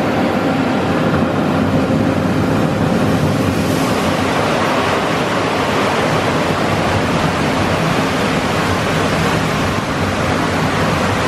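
Petit AccuTrac 360 touchless in-bay car wash spraying a car from its overhead gantry: a loud, steady hiss of high-pressure water spray with a faint low hum underneath.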